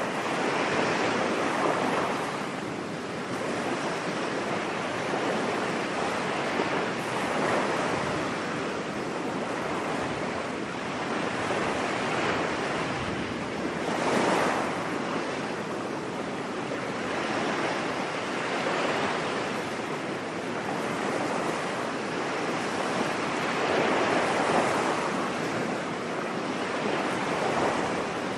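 Ocean surf: waves breaking and washing up a beach, in a steady rushing hiss that swells and ebbs every few seconds.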